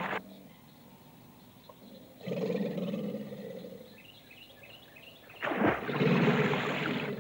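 Caiman bellowing in courtship, with deep, cavernous, slightly hoarse rasping calls. One bellow tails off right at the start, and two more follow, each about one and a half to two seconds long: one a little after two seconds in and one about five and a half seconds in.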